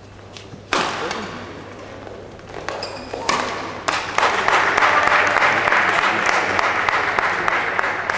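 Badminton doubles rally: racket hits on the shuttlecock ring out in a large hall as sharp cracks, the loudest about a second in. In the second half a dense noise of voices and shouting builds over the play.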